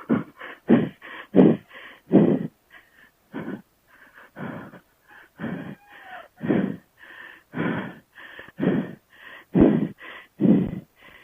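A man breathing hard and panting, about two loud breaths a second, out of breath from the effort of riding a dual-sport bike on a rough single-track trail.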